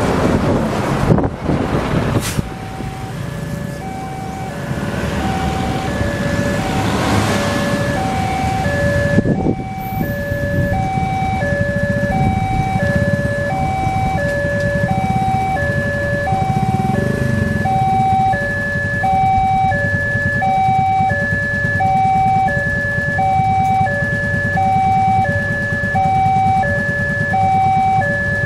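Railway level-crossing warning alarm sounding a repeating two-tone signal, a lower and a higher tone alternating steadily, which warns that a train is coming while the barriers are down. A bus and other traffic go past in the first few seconds, with a sharp knock about two seconds in.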